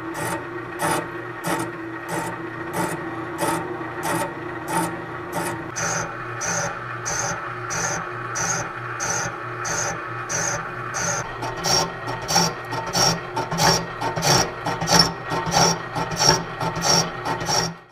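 Home-built boring bar turning in a tractor rear end casting, its cutter bit facing the front edge of the bearing bore: a scraping cut that repeats about twice a second over a steady hum, the strokes getting harsher in the second half. It stops suddenly near the end.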